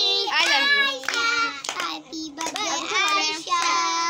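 Children singing in high voices, with some held notes, while paper cards are handled and rustled.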